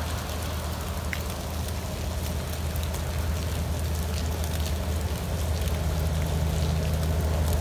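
Alsthom diesel-electric locomotive approaching, its engine a steady low drone that grows slowly louder, over the even hiss of light rain.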